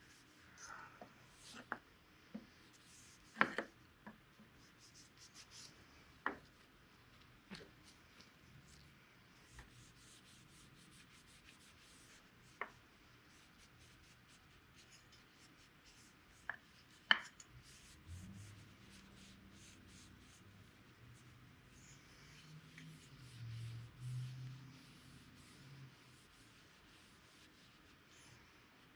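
Quiet rubbing on a freshly stained wooden axe handle to lighten the dark walnut stain, broken by a few sharp light clicks and knocks.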